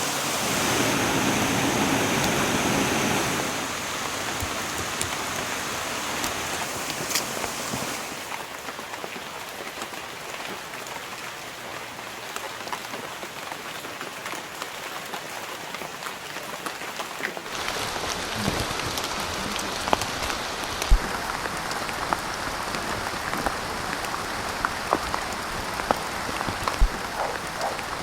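Rain falling in a steady hiss, with individual drops ticking and a few heavier drips thudding in the later part. The sound shifts abruptly in character about 8 seconds in and again about 17 seconds in, as if from different spots in the rain.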